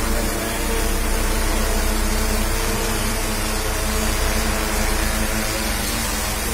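Multirotor crop-spraying drone's rotors running, a steady loud buzz with an even pitch, getting a little louder about half a second in.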